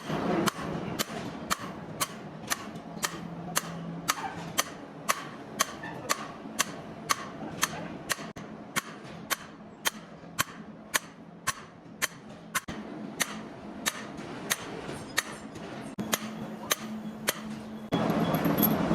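Evenly spaced sharp metallic taps, about two a second, over a low steady hum.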